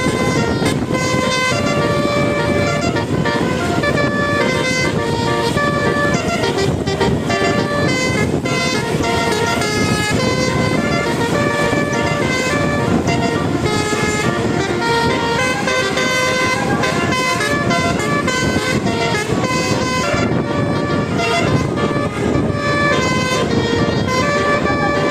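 Bus telolet horn, a multi-tone air horn, playing a tune of stepped notes without a break, over a loud steady low rumble.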